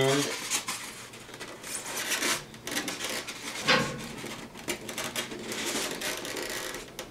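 Hands handling polystyrene foam packing around a boxed 3D printer: irregular rubbing, scraping and light knocks, with one louder sound a little before four seconds in.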